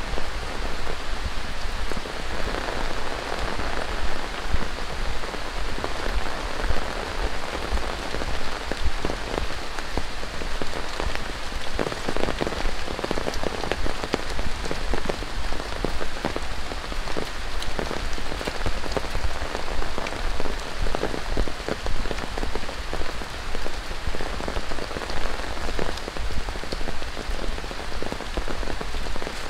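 Steady rain falling, with many close drops ticking on hard surfaces.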